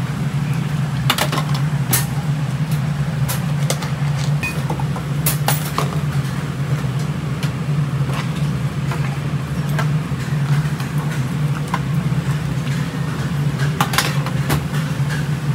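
Busy hawker-stall kitchen noise: a steady low hum with scattered sharp clinks and knocks, several of them close together around the second to sixth seconds and again near the end.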